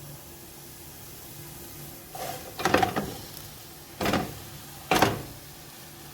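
Raw chicken pieces being put into a pot of chopped onions: three short, noisy bursts about a second apart, starting about two seconds in.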